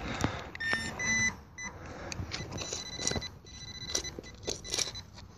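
Handheld metal-detecting pinpointer probed in a dig hole, giving its electronic alert tone as it finds a buried target: a short beep about a second in, then a longer steady tone through the middle. Scrapes and knocks of soil and stones against the probe come in between.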